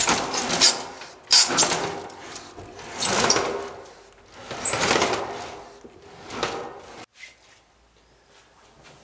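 Roller shutter being raised by hand with its webbing strap in about five pulls, each pull a rattling clatter as the slats wind up. It stops abruptly about seven seconds in, leaving faint room tone.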